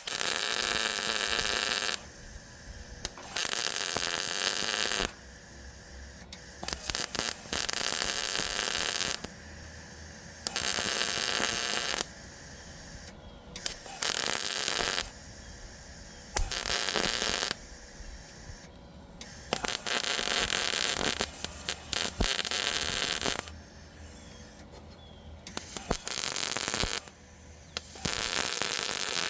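Eastwood MP140i MIG welder laying short bursts of weld, about nine in all, each a crackling hiss lasting one to four seconds with pauses between, as a steel patch is stitch-welded onto thin car body sheet metal.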